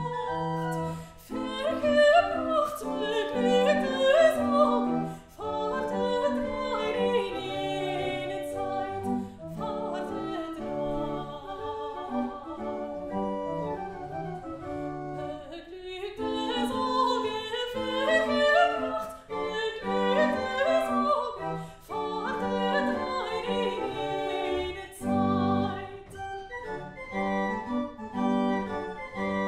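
A soprano sings with vibrato over a pipe organ accompaniment, in phrases with short organ-only passages between them; the organ carries on alone near the end.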